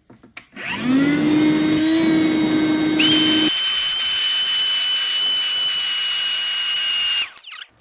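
Small handheld vacuum cleaner switched on, its motor whining up to speed, sucking up small glass shards. About three seconds in its sound turns to a high, steady whistling whine. It is switched off near the end and spins down.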